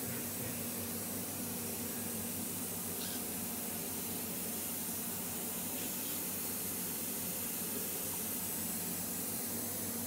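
Steady workshop background noise: an even, unchanging hiss with a low hum beneath it.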